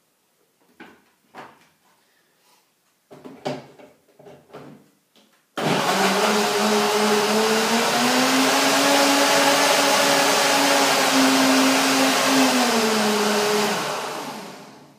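Countertop blender blending a green smoothie of banana and Swiss chard in juice. First come a few light knocks as the jar is handled and set on the base. The motor switches on suddenly about five and a half seconds in, rises in pitch over the next couple of seconds and runs steadily. Near the end it drops in pitch and winds down.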